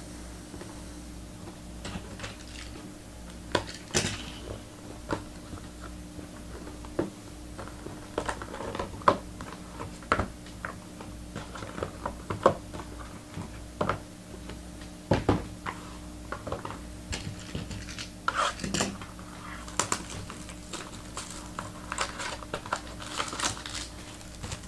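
Irregular light clicks and taps of trading-card boxes, packs and cards being handled on a table, a few sharper knocks among them, over a steady low electrical hum.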